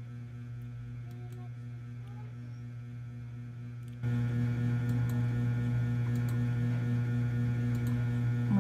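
Steady low hum with a stack of even overtones above it, stepping up noticeably louder about four seconds in.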